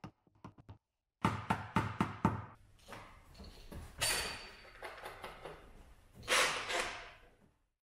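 Handling clatter from a PDR light board on a flexible arm being moved around a car's front wing. A quick run of sharp knocks comes a little over a second in, followed by rustling and scraping, with a louder scrape past six seconds. The sound cuts off suddenly near the end.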